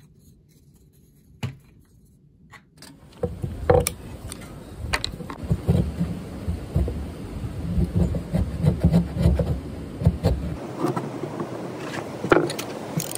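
A few faint clicks, then from about three seconds in wind rumbling on the microphone with scattered knocks and scrapes of wood being handled. Near the end the rumble drops and a rasping noise begins to build.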